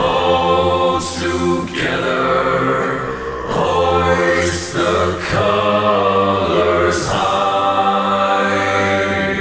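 Background music with a chant-like sung vocal line of long held notes, broken by three short breathy hisses.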